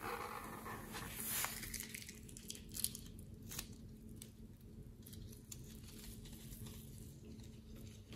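Faint squishing and crinkling as a filled rubber balloon is squeezed out into a bowl of slime, with a few soft clicks in the first few seconds.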